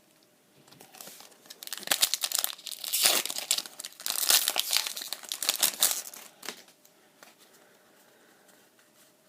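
Foil Pokemon booster pack wrapper being torn open and crinkled by hand, a dense crackling for several seconds that dies down near the end.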